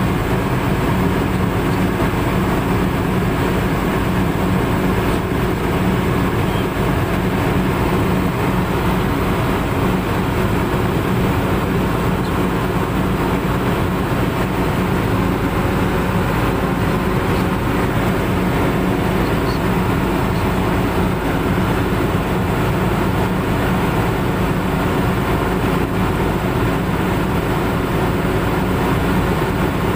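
Excavator diesel engine idling steadily, heard close up from the engine bay. It is kept running so its alternator charges the wet-cell battery.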